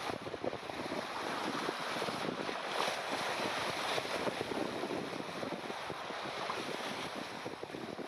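Sea water rushing and splashing against the bow of a steel sailing ketch under way, with wind buffeting the microphone.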